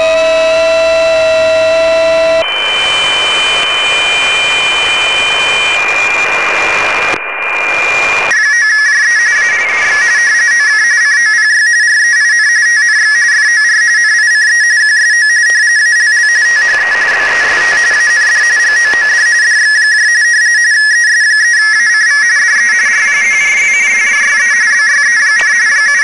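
Amateur radio receiver audio: hiss and steady tones, then from about eight seconds in an RTTY signal rapidly flicking between two close tones. The signal is a station sending a contact sign-off, and the skimmer decodes it as it plays.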